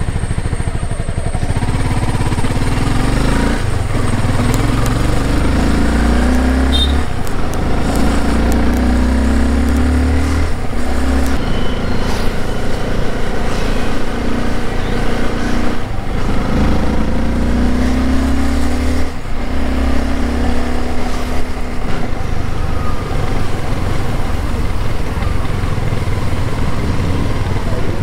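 Honda CBR250R's single-cylinder engine through its stock exhaust, heard from the rider's seat while riding. The revs climb and then drop sharply several times, as at upshifts while accelerating, and the engine runs more evenly near the end in slower traffic.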